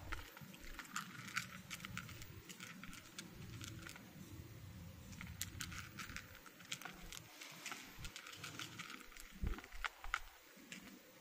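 Two domestic cats crunching dry kibble from a plastic bowl: an irregular run of crisp crunches and clicks as the pellets are chewed and knocked about in the bowl. Two louder low thumps come near the end.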